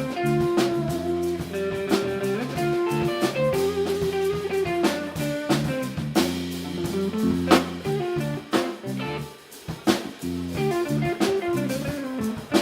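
A live band playing an instrumental passage with guitar and drum kit, no singing.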